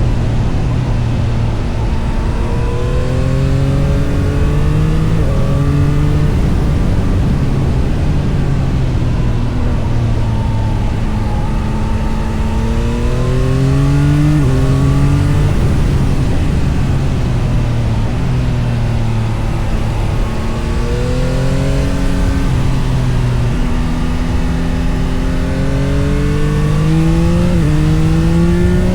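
Yamaha MT-09 SP's 890 cc inline-three engine pulling hard through the gears, its note climbing and stepping down briefly at each upshift about 5, 14 and 27 seconds in, and falling away as the throttle closes between pulls.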